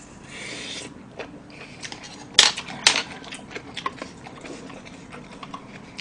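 Close-up eating sounds: chewing, with utensils clicking against a bowl and the table. Two sharp clicks about two and a half and three seconds in are the loudest, followed by lighter taps and scrapes of a spoon in a small wooden bowl.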